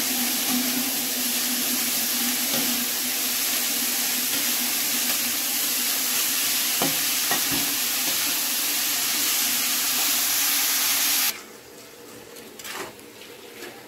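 Freshly added radish greens sizzling in hot oil in a metal kadai while a spatula stirs them, with two short knocks of the spatula on the pan about seven seconds in. The steady sizzle cuts off suddenly near the end, leaving only quieter scraping of the spatula against the pan.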